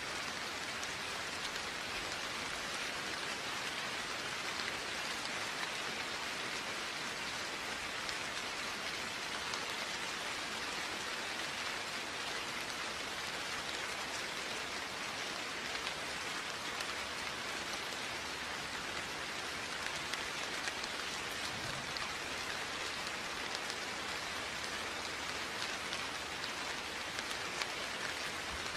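Steady rain falling, an even patter of many drops on surfaces with no thunder.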